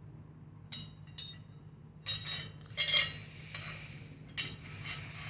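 Forged steel tong blanks clinking and ringing against each other as they are handled and set down: two light clinks about a second in, then a run of louder metallic clatters from about two seconds in, over a low steady hum.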